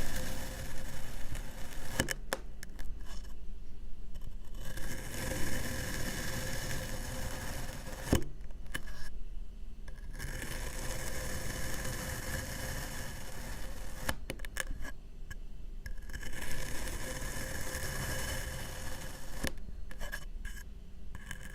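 Kinetic sand being cut and scraped, a steady crunchy scraping. It comes in short takes broken by four sudden near-silent gaps of a second or two.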